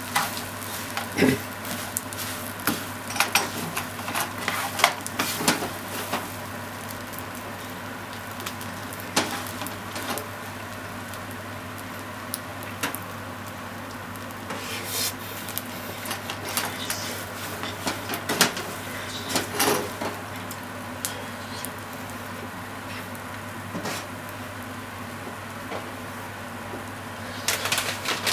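Fried rice being stir-fried in a non-stick frying pan: a spatula scraping and knocking against the pan in irregular strokes over a steady sizzle. The strokes come thick in the first few seconds and again near the end, and are scattered in between.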